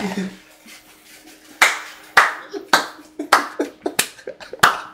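A person clapping hands in excitement: about seven sharp claps roughly half a second apart, starting about a second and a half in.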